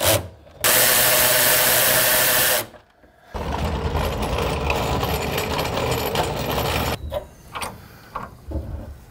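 A cordless power tool runs for about two seconds, spinning down the 14 mm fasteners for the front fuel-tank straps. After a short pause comes a steady noise lasting about three and a half seconds, then a few light clicks and knocks.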